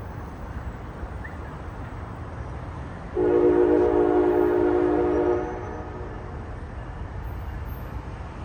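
Locomotive air horn sounding one blast of about two seconds, a steady multi-note chord that starts and stops abruptly, over a steady low rumble.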